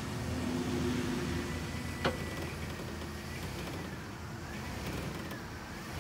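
A towing vehicle's engine running steadily as it takes up the strain on a tow rope tied to a dead car. There is a sharp snap about two seconds in, then a faint creaking squeal that rises and falls several times as the rope and car creak under tension.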